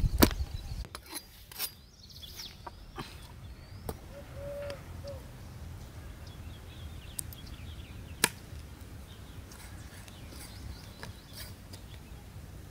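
Scattered sharp knocks and clicks, the loudest one about eight seconds in, over a low steady rumble, with faint high chirps a couple of seconds in.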